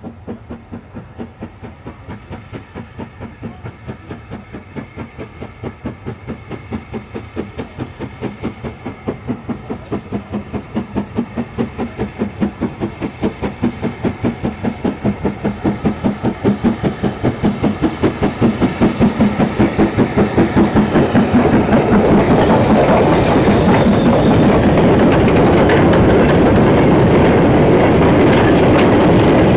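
LMS Stanier 8F two-cylinder 2-8-0 steam locomotive working hard with a goods train of steel mineral wagons. Its rhythmic exhaust beats grow steadily louder as it approaches. About three quarters of the way through, the engine has passed and the empty wagons roll by close, with a loud steady rumble and clatter of wheels over the rail joints.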